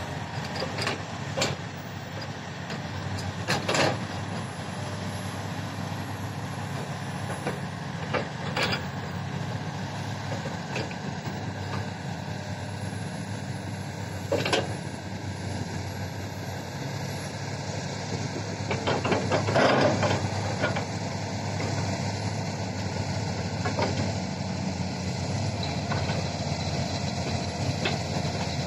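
Heavy diesel earthmoving machinery running steadily: a crawler bulldozer working soil and an excavator. There are several sharp clanks, with a louder cluster about twenty seconds in.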